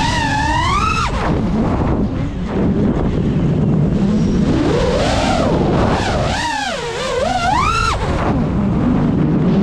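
Brushless motors of a GEPRC Mark5 5-inch FPV quadcopter whining, the pitch swinging up and down as the throttle is punched and cut. It climbs to a high whine and drops sharply about a second in and again near the end, with a slower rise and fall in between.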